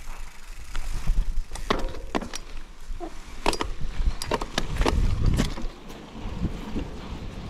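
Mountain bike rolling over a rough, rocky trail: irregular sharp clicks and knocks from the bike over a low rumble of wind on the camera microphone.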